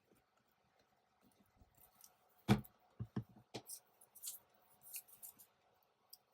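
Paper crafting handled on a desk: a sharp knock about two and a half seconds in, a few lighter knocks just after, then quick crisp rustles of paper as paper stamps are glued and pressed into a journal.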